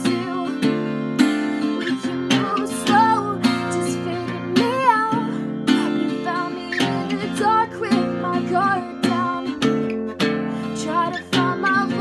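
Steel-string acoustic guitar strummed in a steady chord rhythm, with a voice singing a melody over it.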